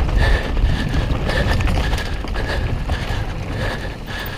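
Mountain bike riding fast down a dirt trail: wind rushing over the microphone, tyres rumbling, and the bike rattling and knocking over bumps, with a high buzz coming and going. It grows quieter near the end as the bike slows.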